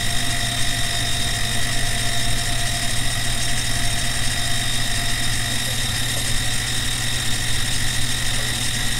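CNC-converted benchtop milling machine running steadily, a constant hum with high steady whines, as its end mill takes a slow, light climb-milling finishing pass along the edge of the metal part.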